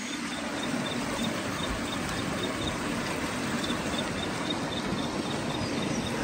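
Steady outdoor rushing noise, with a faint high chirp repeating about three times a second that stops for about a second in the middle.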